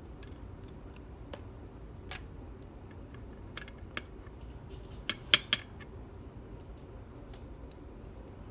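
Small metal lock pins clicking and clinking as the pins of a disassembled pin-tumbler lock are handled and sorted: a handful of sharp, separate ticks, with a quick run of three about five seconds in.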